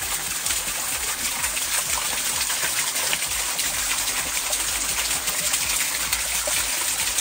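Fast river water rushing steadily through a rocky canyon: the Maligne River's whitewater.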